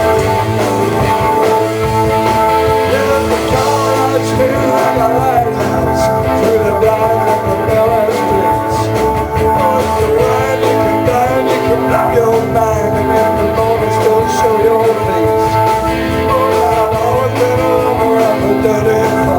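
Rock music in an instrumental passage with guitar, over a steady held note and a wavering lead line.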